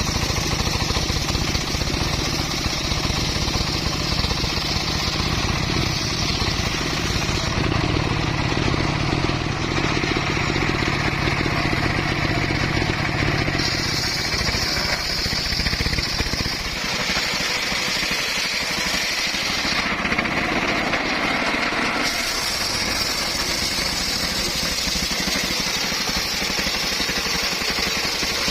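Circular saw running steadily while cutting wood, with a fast mechanical pulse underneath and a higher cutting tone that shifts several times as the wood is fed through.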